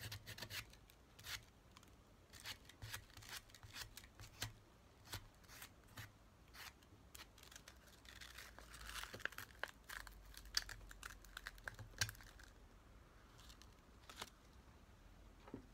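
Faint sandpaper rubbing on a small driftwood handle by hand, with scattered crinkles and clicks of the folded paper being handled. A denser stretch of rubbing comes about eight seconds in, and a single light knock sounds near the end.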